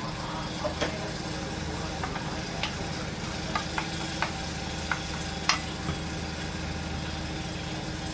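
Steel spoon clinking and scraping, first spreading oil in a non-stick frying pan and then stirring batter in a steel bowl, with about eight sharp clinks, the loudest just past the middle. Underneath is a steady sizzle from a pancake frying in the next pan.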